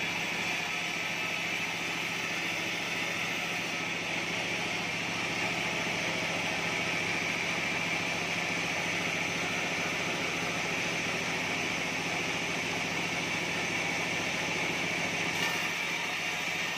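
Sawmill band-saw headrig running and cutting an acacia log as the carriage feeds it through the blade: a steady low hum under a higher rushing noise.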